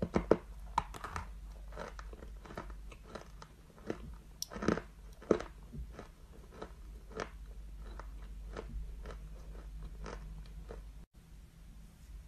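A person crunching and chewing a mouthful of dry white edible clay. There are a few loud crunches at the start and again around the middle, then steady chewing about twice a second.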